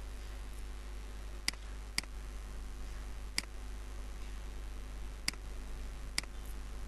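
Five sharp, single computer mouse-button clicks at uneven intervals, over a steady low hum.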